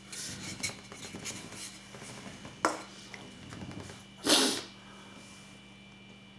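Small clicks and rubbing sounds of handling, with a sharp click near the middle, then one short breathy noise about four seconds in.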